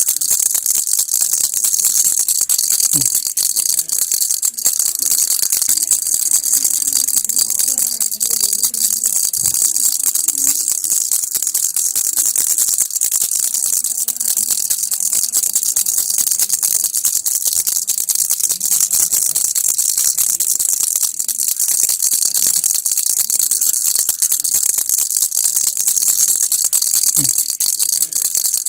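A baby's rattle (kilukki) being shaken continuously, its beads making a dense, steady stream of fast high clicks.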